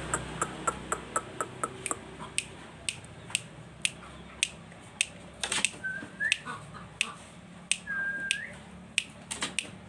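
A run of sharp clicks at uneven intervals, quick in the first two seconds and sparser after: a handler's clicking to coax a green junglefowl to crow. Twice near the middle comes a short, level high note that flicks upward at its end.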